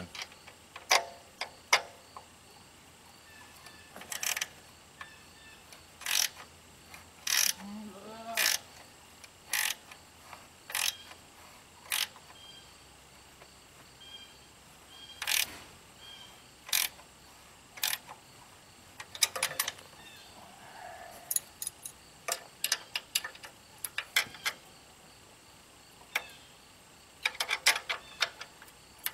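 Ratchet wrench clicking as the engine's mounting bolts are tightened down: sharp single clicks, with a few short runs of quick clicks.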